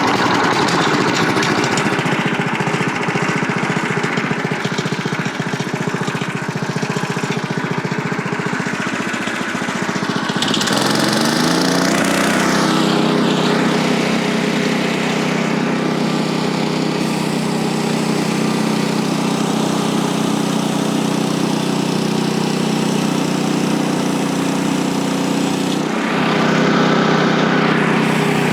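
Small gasoline engine of a portable band sawmill running. About eleven seconds in it revs up from a lower speed to a steady high speed, and near the end the sound grows louder and brighter.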